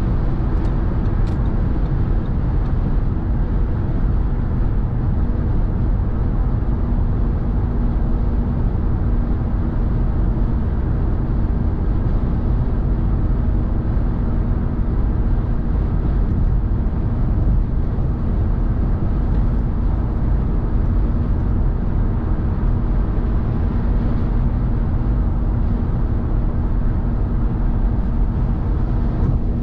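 Steady road noise of a car driving at motorway speed: a constant rush of tyres on the road with a low engine drone and a faint steady hum underneath.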